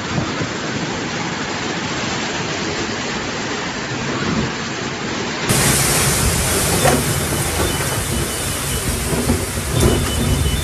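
Typhoon wind and heavy rain, a steady rushing noise. About halfway through it cuts to another recording where the storm is louder and fuller, with gusts.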